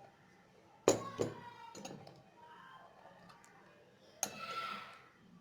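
Utensils clinking against a bowl: a sharp clink about a second in with a second one right after, a few faint taps, then another clink near the end that rings briefly.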